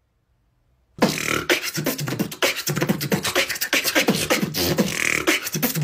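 Beatboxing: a fast run of mouth-made percussive clicks and snares with short, low hummed bass notes, starting about a second in after a moment of silence.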